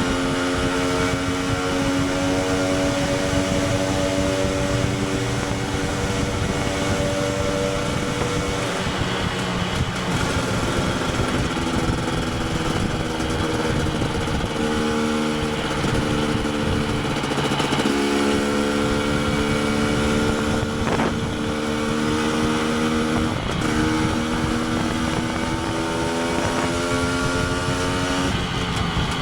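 KTM 250 EXC TPI two-stroke single-cylinder motorcycle engine running under way, its note holding steady for stretches and shifting pitch about nine seconds in and again between fifteen and eighteen seconds in, over wind noise.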